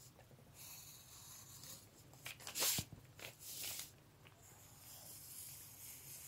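Pencil scratching along pattern paper, then thin paper sheets rustling and crinkling as they are shifted, with a few brief louder crackles about two to four seconds in.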